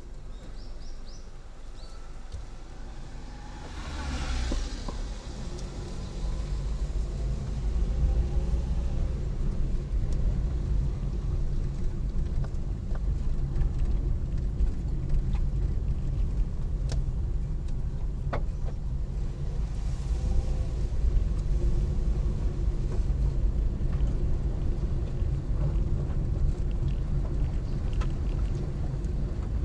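Car driving: a steady low engine and road rumble that grows louder about six seconds in and then holds, with a brief whoosh about four seconds in.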